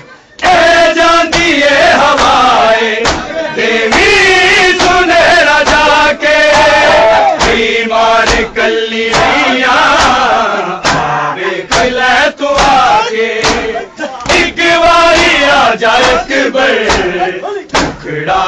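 A group of men chanting a noha, a Muharram mourning lament, over an even beat of hands striking bare chests (matam), a little faster than one stroke a second.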